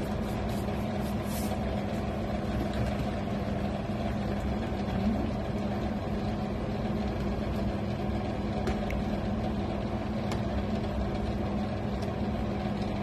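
A steady machine hum, the loudest thing throughout, with a few faint clicks and scrapes of a spatula stirring the simmering curry in the pan.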